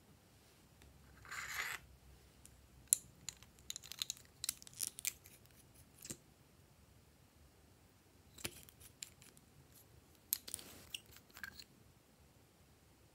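Small plastic makeup bottles and caps being handled: scattered light clicks and taps, with two short scraping rustles.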